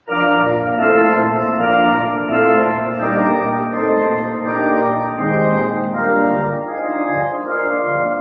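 Church organ starting suddenly on a full chord and playing a loud postlude of held, changing chords, as the service ends.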